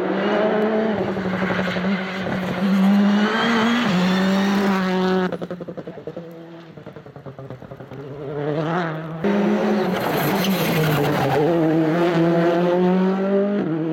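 Citroën C3 R5 rally car's turbocharged 1.6-litre four-cylinder engine at full throttle, revving up and dropping in pitch at each gear change as the car drives hard past. The sound breaks off abruptly about five seconds in, comes back quieter and more distant, and turns loud again with a sudden jump about nine seconds in.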